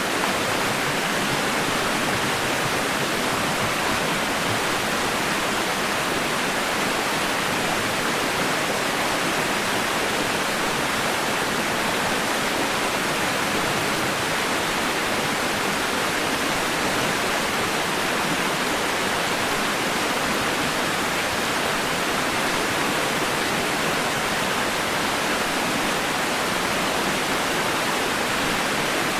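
Steady white noise for lulling a baby to sleep: an even, unchanging hiss, weighted toward the middle and upper range and light in the bass, without pauses or rhythm.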